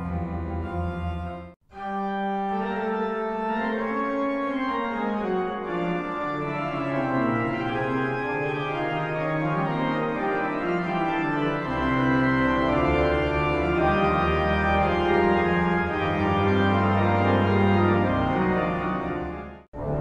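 Pipe organ playing sustained chords over a slowly moving bass line, with deep bass notes coming in about halfway through. The music breaks off abruptly twice, a second and a half in and just before the end.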